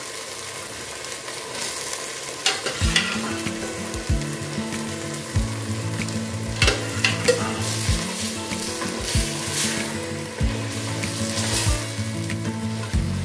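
Boiled goat meat sizzling as it is ladled into a hot pot of tomato stew base and stirred, with metal ladle and wooden spoon knocking against the pot. Background music with a steady beat comes in about two and a half seconds in.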